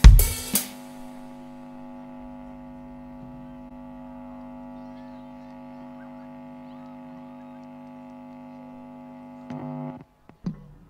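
A live band's last loud drum and cymbal hits, then a steady electrical hum of several fixed tones from the stage sound system. The hum stops suddenly about ten seconds in.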